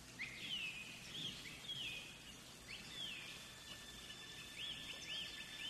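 Faint birdsong: short arched whistled notes repeating about every half second, over a faint steady high tone.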